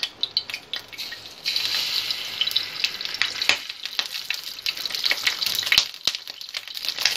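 Beaten egg frying in hot oil in a pan: the sizzle jumps up about a second and a half in as the egg hits the oil, then keeps hissing with crackling pops.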